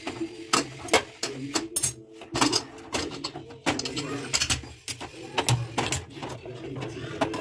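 Aluminium pressure cooker lid being twisted loose and pulled out of the pot, giving a string of metal clicks and scrapes against the rim.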